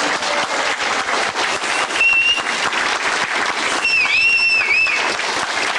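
Audience applauding: dense clapping from a large seated crowd. A high, wavering tone rings over the clapping twice, briefly about two seconds in and longer around four seconds in.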